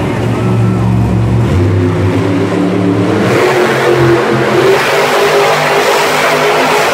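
Monster truck's supercharged V8 engine revving as the truck drives across the arena floor. The sound grows louder and fuller from about three seconds in.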